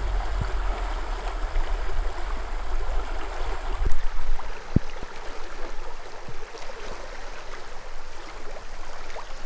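River current flowing and rippling, a steady rushing wash of water, with a low rumble under it for the first few seconds that then fades.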